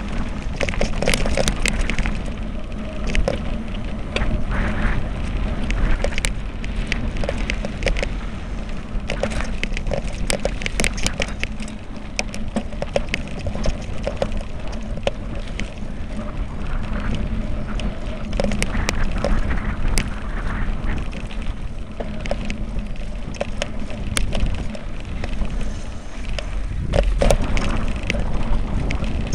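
Mountain bike descending a rough, rocky dirt singletrack: dense rattling, clicking and knocking of the bike over stones and bumps, over tyre crunch on the dirt and a constant rumble of wind on the microphone.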